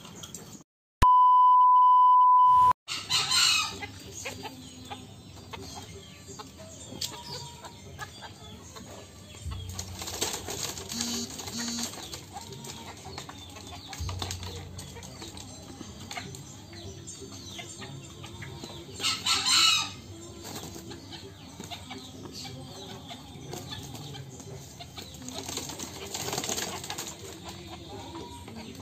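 A steady electronic beep tone near the start, lasting under two seconds. Then come intermittent fowl sounds from a caged green junglefowl cock and a bantam hen: calls and wing flapping, with the loudest burst about two-thirds of the way through.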